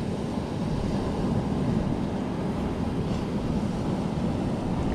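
Wind buffeting the microphone: a steady, low rumbling rush.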